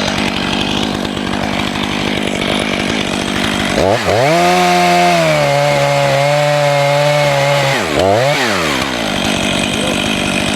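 Two-stroke chainsaw idling, then revving up about four seconds in and running at high speed for roughly four seconds, its pitch sagging slightly partway through. It then drops back, blips once more briefly, and settles to a rough idle.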